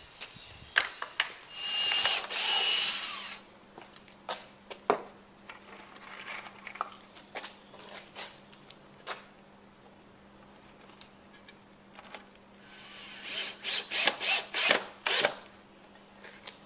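Cordless drill driving screws through a wooden 2x3 brace into a 2x4 frame, in a series of short trigger bursts near the end. Earlier comes a loud power-tool run of about two seconds, with scattered knocks of wood in between.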